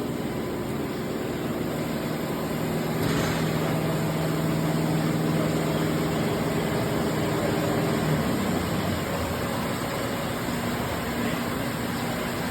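Blanchard #22D-42 vertical spindle rotary surface grinder running, a steady electric machine hum with a broad hiss over it. The hiss grows louder about three seconds in, and the hum's steady tones drop away about eight seconds in.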